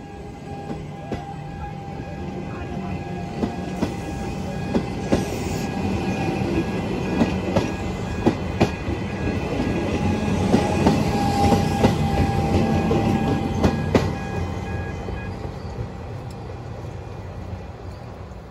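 Comeng electric suburban train passing close by, its wheels clicking over the rail joints under a steady rumble and a thin high whine. The sound swells to its loudest a little past the middle, then fades as the train moves away.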